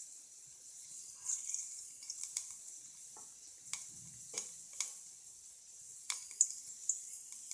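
Oil heating in a pan on the stove: a faint, steady high sizzle with scattered sharp ticks and crackles, about eight in all.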